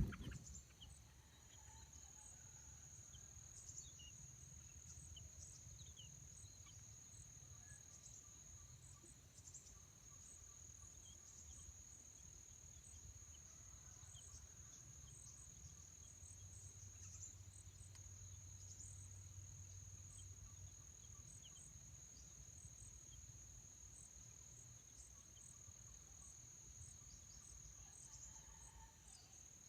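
An insect trilling on one steady high pitch without a break, faint, with a few faint short chirps scattered over it and a low rumble underneath.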